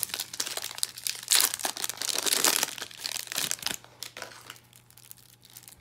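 Foil wrapper of a Magic: The Gathering Jumpstart booster pack crinkling and tearing as it is pulled open by hand, dying down about four seconds in.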